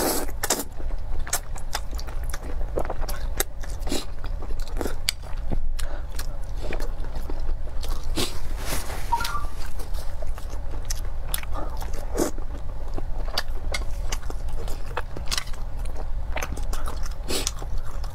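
Close-miked eating sounds: noodles in a dark soy-based sauce slurped in near the start, then wet chewing and biting with many small clicks and smacks. Near the end a chewy, red-glazed piece of pork is bitten.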